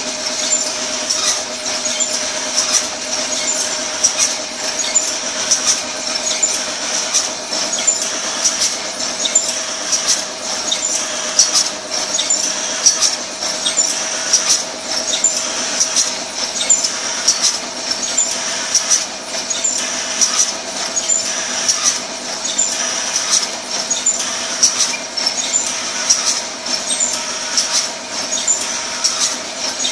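Automatic tissue sachet packing machine running: a steady mechanical hum with a high squeal, and a regular, repeating clicking from its moving parts.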